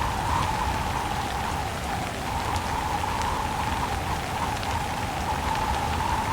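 Steady rain: an even hiss with scattered ticks of individual drops.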